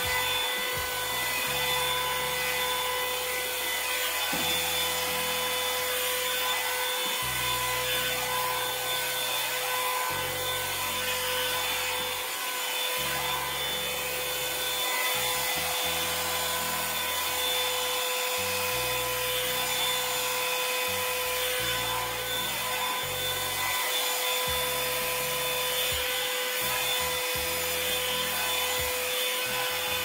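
Revlon One-Step hair dryer brush blowing on its high setting: a steady rush of air with a constant motor whine, as the brush is pulled through the hair.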